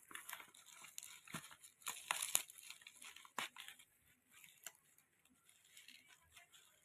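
Packaging being torn open by hand: irregular crackles and rustles, busiest in the first three seconds, then fewer and fainter.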